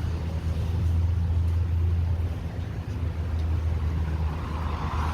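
Steady low rumble of road traffic, with a car passing near the end.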